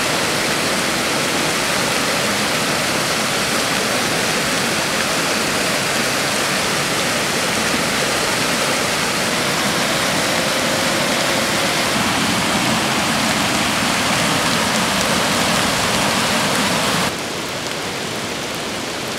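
Flood-swollen creek rushing and churning over rocks in a muddy torrent, a loud steady wash of water. About three seconds before the end it cuts suddenly to quieter, steady rain falling on a flooded road and wet gravel.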